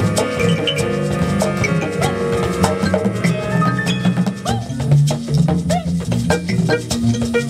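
Live band playing an instrumental passage: a double bass line of held low notes under busy hand percussion, with light higher pitched notes over it.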